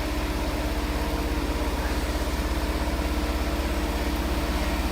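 Richpeace multi-needle quilting machine running steadily at speed: a fast, even mechanical pulse of the needle stroke over a steady hum.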